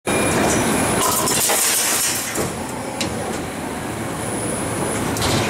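Plastic injection moulding machine running a cutlery mould test: steady loud machine noise, with a hissing burst about a second in and sharp clicks near the middle and near the end.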